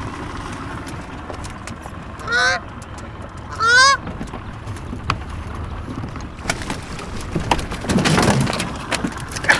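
Canada goose honking twice, a couple of seconds in; the second honk is louder. Near the end comes a burst of noise.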